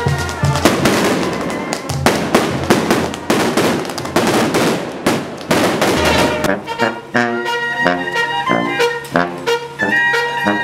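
A rapid string of firecrackers crackling for about six seconds over brass band music. Then the cracks stop and a village brass band of tuba, trumpets and bass drum plays on alone.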